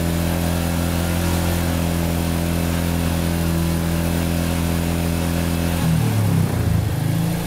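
Royal Enfield 350cc single-cylinder motorcycle engine idling steadily, running to heat its newly powder-coated exhaust past 400°C so the high-temperature coating cures. About six seconds in its note wavers briefly, as in a short rev.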